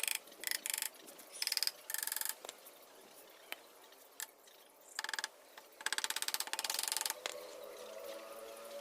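Ratchet wrench clicking in several short bursts, with a longer run of rapid clicks about six seconds in.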